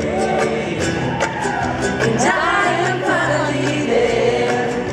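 Live acoustic band music: male and female voices singing together over acoustic guitar, cello and upright bass, with a sliding vocal phrase a little past two seconds in.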